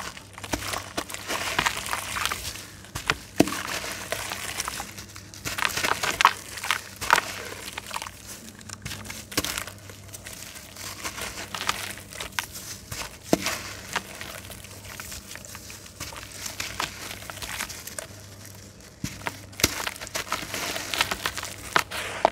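Soaked red clay slab crumbled by hand: irregular gritty crackling and crunching with sharp snaps, as wet crumbs and lumps drop into a basin of foamy water.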